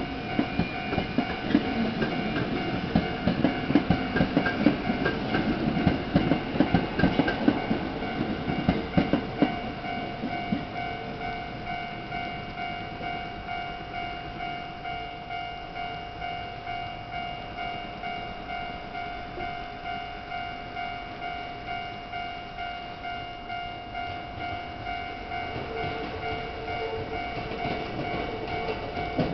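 Japanese level-crossing warning bell ringing in an even, steady rhythm throughout. Over the first ten seconds or so, an electric commuter train's wheels clatter over the rail joints as it passes. Near the end, another train draws near.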